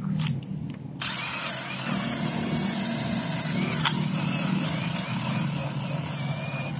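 Small cordless battery drill boring into hard, old jackfruit root wood. The motor starts about a second in and runs steadily with a wavering whine as the bit cuts, then stops near the end.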